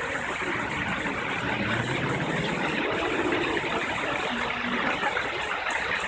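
Fountain water jets splashing into the basin: a steady, even rush of falling water. Faint voices come through it around the middle.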